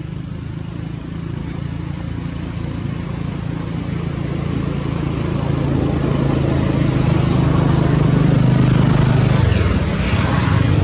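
An engine running with a steady low hum, growing louder over about eight seconds and easing off a little near the end.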